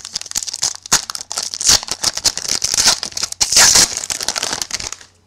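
Foil trading-card pack wrapper being torn open and crumpled by hand: a dense, loud crinkling and crackling that stops just before the end.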